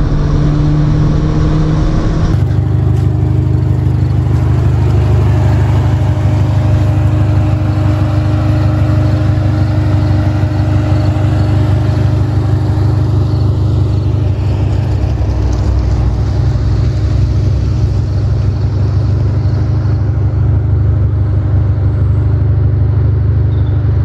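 A car engine running with a low, steady drone. About two seconds in the sound changes abruptly, then holds at an even, unchanging pitch.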